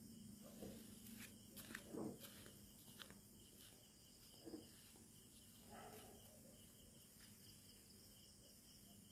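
Faint night ambience: crickets chirping over a low steady hum, with a few soft knocks and rustles in the first few seconds.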